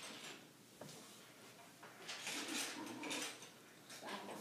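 Small plastic Lego pieces being handled: light clicks, clatter and rustling, scattered and uneven, busier in the second half.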